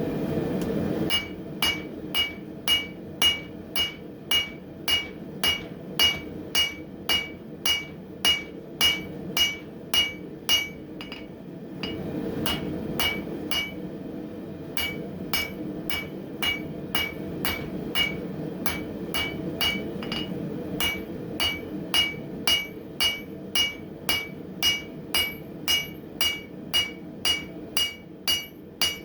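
Hand hammer striking hot coil-spring steel on an anvil, flattening the bar: a steady run of blows, about two a second, each with a bright metallic ring, lighter for a few seconds about halfway through. A steady forge hum runs underneath.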